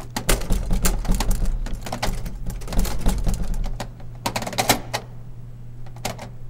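A door rattling and clicking rapidly in its frame, a dense run of sharp clicks and knocks with a low rumble under them, which thins out after about four and a half seconds to a couple of single clicks.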